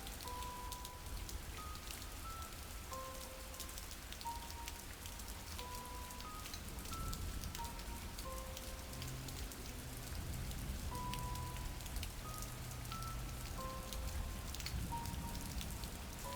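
Steady rain sound effect, a constant patter with many small drop ticks, under soft, sparse held music notes and a low drone.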